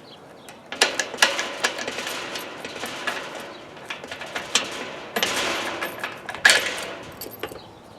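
Irregular metal clicks, knocks and rattles of a small padlock being handled and worked back out of a drilled hole in a gate lock latch.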